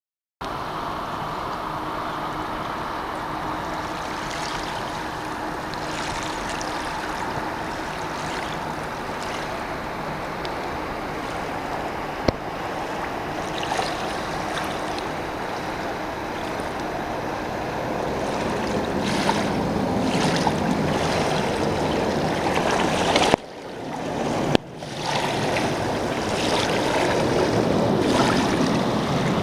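Steady rush of river water with wind on the microphone, growing louder in the last third and cutting out briefly twice.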